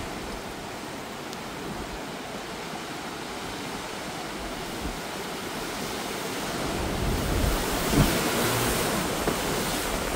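Hurricane wind and heavy rain rushing steadily, growing louder about six and a half seconds in. About eight seconds in a power transformer blows with a single sharp low boom, followed by a smaller pop a second later.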